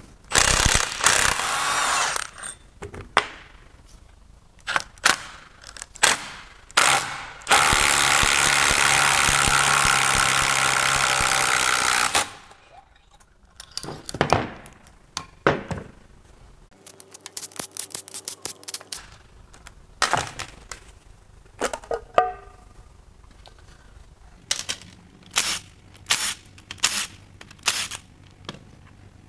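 Metal clunks and scraping as an aluminum 5.3L V8 block is tilted over on a steel bench. A cordless impact wrench then runs steadily for about four seconds, driving a harmonic balancer puller to draw the crank pulley off. After that come clicks of tools and parts, and in the last few seconds short repeated bursts of the impact wrench loosening timing cover bolts.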